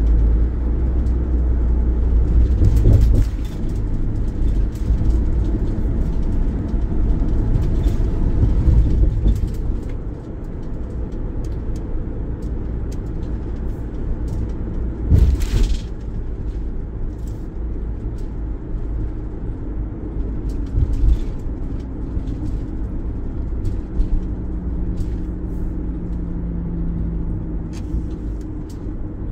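Road and engine noise of a Ford camper van on the move, heard from inside the cab: a steady low rumble, louder for the first ten seconds, with scattered light knocks and one sharper knock about fifteen seconds in.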